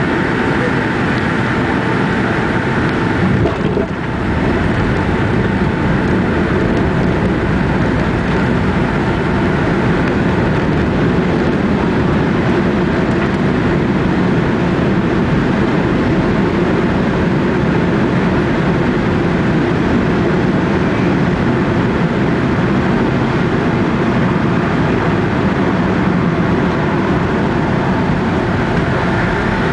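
Cabin noise inside a Boeing 757-200 with Rolls-Royce RB211 engines during touchdown and landing rollout: a loud, steady rush of engines, airflow and runway rumble, with a brief bump about four seconds in.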